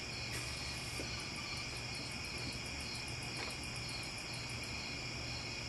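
A microwave oven running with a steady low hum, with crickets chirping over it, including a fast high ticking that stops near the end.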